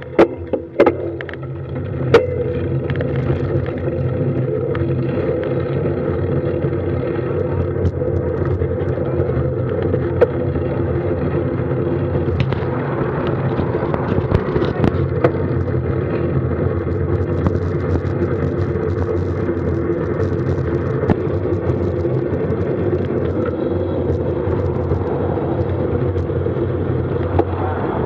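Steady rush of tyre and wind noise picked up by a camera on a road bike's handlebars while the bike rolls down a paved road, with a few sharp clicks in the first couple of seconds.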